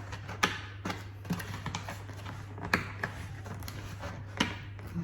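Hands handling and opening the artist set's box and packaging: scattered sharp taps and clicks, loudest about half a second in and near the three-second mark, over a steady low hum.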